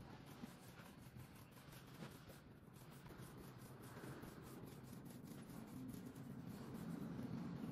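Small paint roller being worked back and forth over wet black paint on a wooden board: faint rubbing, rolling strokes.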